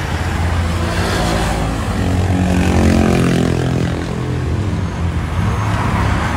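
Road traffic passing close by: vehicle engines humming with tyre noise, one engine growing loudest about three seconds in.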